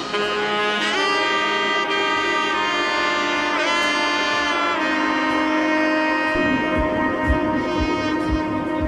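Background music: a lead wind instrument holds long notes that change pitch every second or so, and a regular low drum beat comes in about six seconds in.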